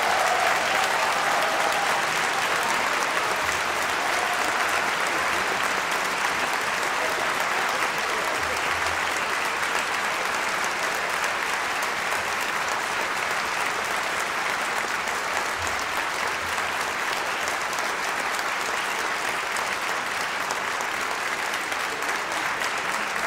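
Applause from many hands clapping in a dense, steady patter, loudest at the start and easing off slightly.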